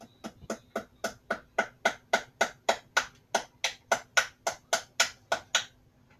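A hammer tapping small nails into a wooden stool seat: about twenty quick, even strikes, roughly four a second, stopping shortly before the end.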